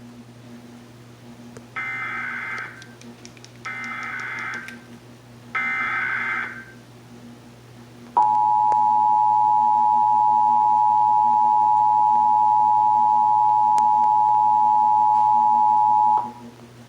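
Emergency Alert System header: three bursts of about a second each of warbling digital data tones (the SAME header), then the EAS two-tone attention signal held steady for about eight seconds and cut off sharply. It is the start of an EAS alert, here a Required Monthly Test.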